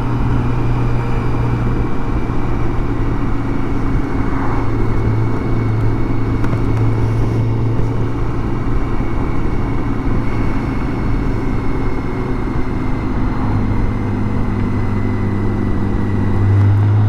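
BMW K1600 GTL's inline-six engine running at a steady cruise under wind and road noise, with a faint steady high whine. The engine gets a little louder near the end.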